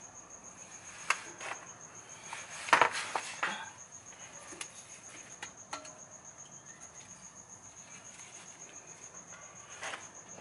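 A few sharp metallic clicks and clinks of a socket, extension and differential plug being handled, the loudest a little under three seconds in. Under them runs the steady, high, rapidly pulsing chirp of a cricket.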